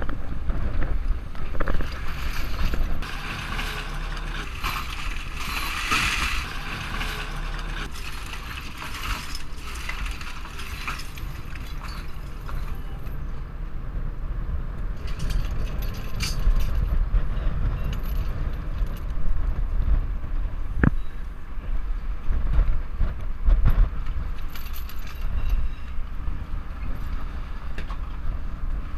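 Boat motor running with a steady low rumble and wind on the microphone. Rattling and clattering through roughly the first dozen seconds, with a sharp click about two-thirds of the way in.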